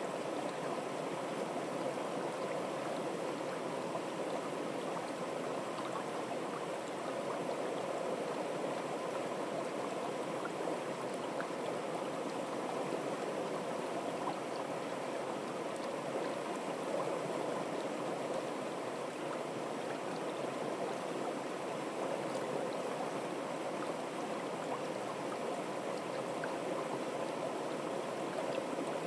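Shallow, fast-flowing stream running over stones, a steady, even rush of water.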